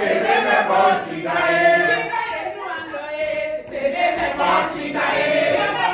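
A group of people singing together in chorus, women's and men's voices mixed.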